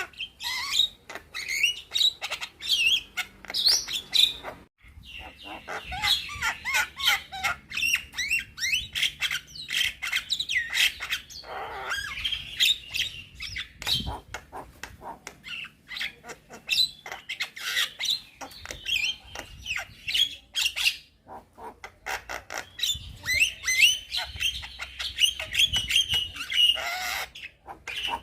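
Young Javan myna singing a fast, nearly unbroken stream of clicks, chirps and harsh squawks, with brief pauses about five seconds in and again around twenty-one seconds.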